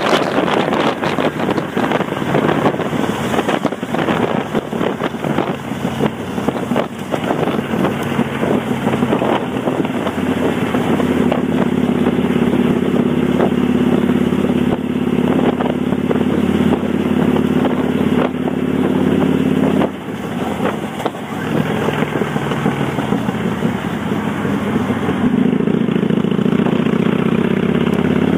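Kawasaki Vulcan 800's V-twin running through Vance & Hines Straight Shots pipes with the baffle plugs removed. Wind buffets the microphone for the first third, then the open exhaust settles into a steady note, dipping briefly about twenty seconds in.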